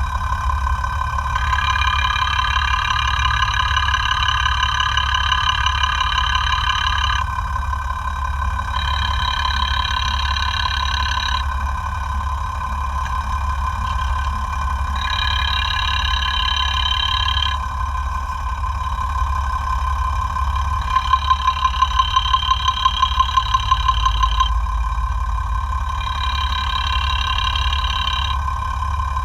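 Six-cylinder diesel engine of a FAW 260 hp truck idling, heard through a mechanic's electronic stethoscope whose probe is moved from point to point, so the tone changes abruptly every few seconds. A rhythmic ticking knock comes through, which the mechanic traces to the fuel injection pump after the engine overhaul.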